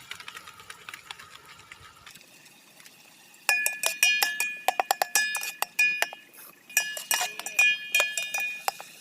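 Metal spoon stirring and knocking against a metal cooking pan, many quick strikes that each ring at the same high pitches, in two runs with a short pause between. Faint scraping comes before the strikes.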